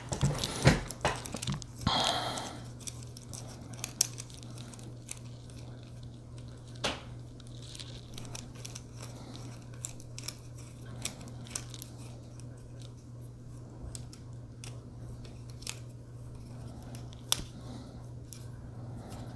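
Small plastic clicks and rattles from handling a phone clamp mount and flexible tripod as they are screwed and fitted together, busiest in the first few seconds with a brief scraping rustle about two seconds in. A steady low hum runs underneath.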